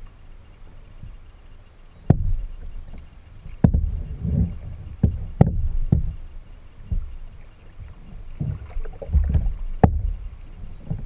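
Paddling a kayak: water sloshing and a low rumble against the hull, with about five sharp knocks at uneven intervals from the paddle and hull.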